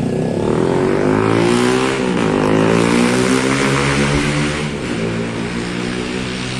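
Coach bus's Scania diesel engine pulling out under load up the ferry's ramp, its note rising, dipping briefly about two seconds in, then rising again.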